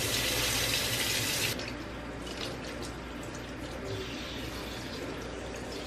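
Kitchen sink faucet running, a steady rush of water into the basin. About a second and a half in it drops quieter and turns splashy and irregular as the stream falls onto hair being rinsed of dye.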